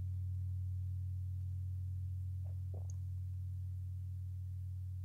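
A low, steady hum that slowly fades, with two faint soft sounds about halfway through.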